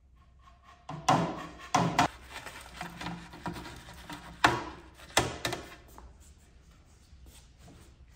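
Dishware clattering as fried fish is tipped from a metal tray onto a plate on a wooden table: a handful of sharp knocks, the loudest about a second in and two more between four and a half and five and a half seconds in, with softer rubbing and tapping between them.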